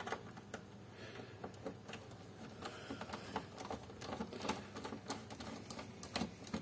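Screwdriver turning a screw out of the back panel of an APC Back-UPS uninterruptible power supply: faint, irregular small clicks and scrapes as the bit works the screw loose.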